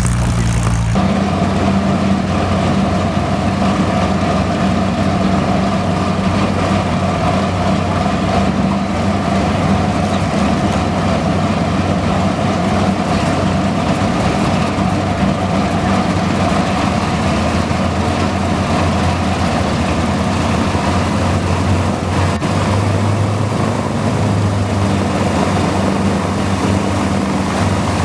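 Big WW2-era aircraft piston engine running steadily with a deep, even drone. Its note changes abruptly about a second in.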